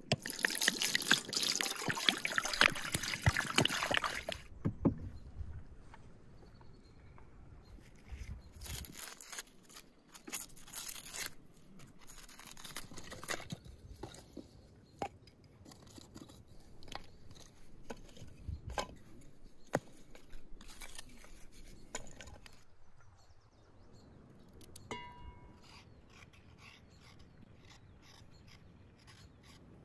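Water poured from a clay jug into an enamel bowl, splashing for about four seconds. It is followed by quieter scattered knocks and scrapes as firewood is laid on embers and a carrot is scraped with a knife.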